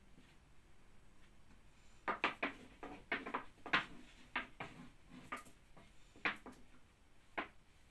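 Long thin wooden rolling pin (oklava) knocking and clicking against a wooden board as baklava dough is rolled out. Irregular sharp knocks begin about two seconds in, in quick clusters, with a last one near the end.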